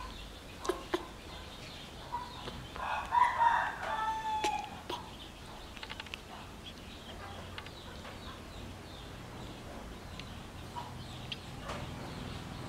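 A single drawn-out animal call a few seconds in, about a second and a half long, ending in a held, slightly falling note. Scattered small clicks come before and after it, over a faint low hum.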